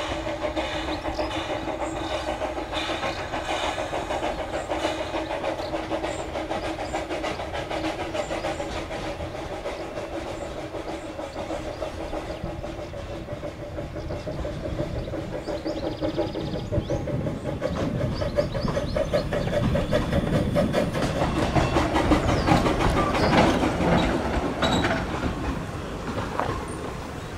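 Narrow-gauge steam train running past, its wheels clicking steadily over the rail joints and growing louder as it nears. A steady tone is heard through the first half and fades out about halfway.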